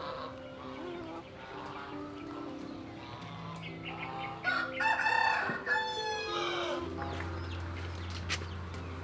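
A rooster crowing once, a long call of about two seconds near the middle, among chickens clucking.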